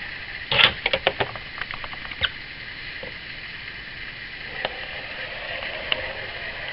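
Plastic drawing board's sliding rule pushed up the board, with a quick run of clicks and rattles near the start, then a few single knocks. Near the end a pencil scratches along the rule's edge, drawing a border line.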